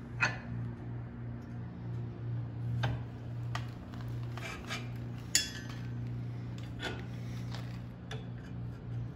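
Metal tools clinking and clanking irregularly as they are handled, about eight light strikes, one of them ringing briefly about five seconds in, over a steady low hum.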